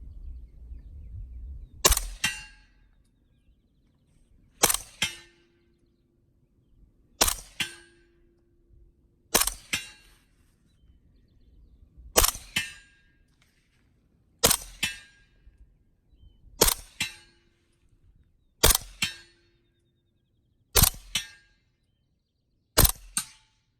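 Suppressed KP-9 9mm carbine with a Silencer Co. Omega 9K can, firing 147-grain rounds as ten single shots about two seconds apart, each a sharp double crack. After several of the shots a short ringing tone hangs for up to a second.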